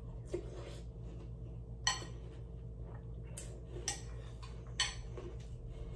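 Metal spoon clinking against a cereal bowl while cereal is eaten: four sharp clinks, about 2, 3.5, 4 and 5 seconds in. The first rings briefly.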